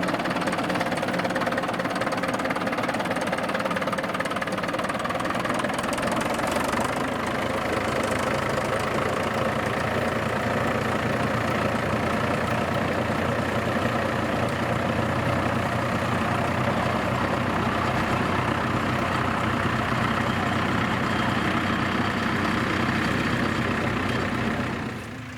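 Small forest-railway diesel locomotive engine running steadily with a diesel clatter.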